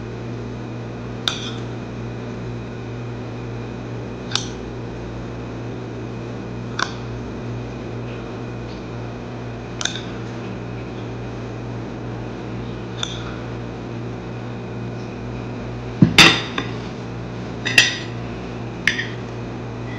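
Spoon and fork clinking against a plate while eating, a sharp clink every few seconds. A louder knock and a quick run of clinks come near the end. A steady low hum sits underneath throughout.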